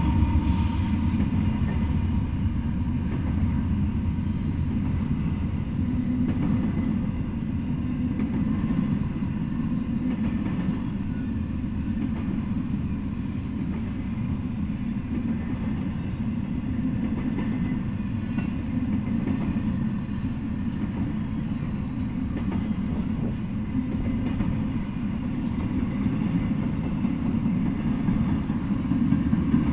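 Intermodal freight train of double-stack well cars loaded with shipping containers rolling past: a steady low rumble of steel wheels on the rails.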